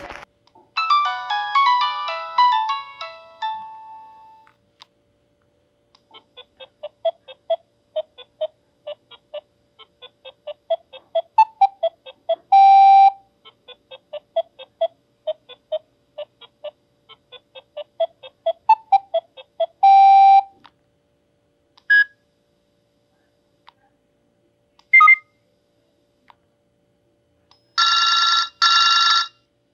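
Nokia 7650 stock ringtones and alert tones played one after another. First comes a short chime of a few notes, then a fast melody of short electronic notes lasting about fourteen seconds with two held notes in it. After that come two brief single alert beeps and, near the end, two long buzzing tones back to back.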